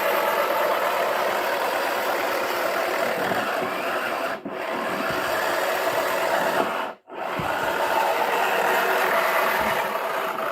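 Toy washing machine running, its small motor and the plastic balls tumbling inside making a steady rattling rub. The sound dips briefly about four and a half seconds in and cuts out almost completely for a moment about seven seconds in, then carries on.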